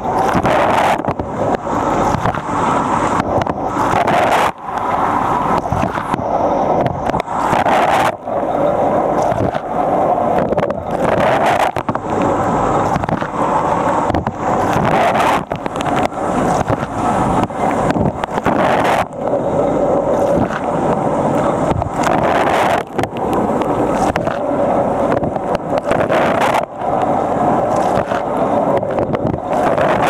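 Water jets of a Fisher & Paykel Nautilus dishwasher in its wash cycle, spraying and splashing hard over the racks, heard from inside the wash tub. The steady loud rush dips briefly about every three and a half seconds.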